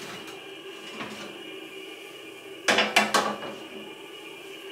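Metal baking sheet slid out of the oven and set down on the gas range's grates: a couple of light knocks, then a loud clatter of metal clinks about three seconds in, over a steady hum.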